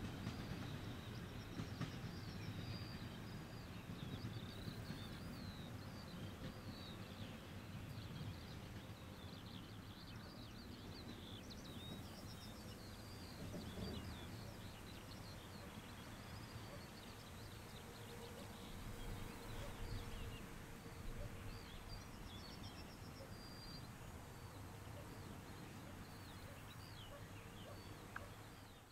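Birds chirping and singing over a faint low rumble of a distant passenger train, the rumble easing off as the train moves away.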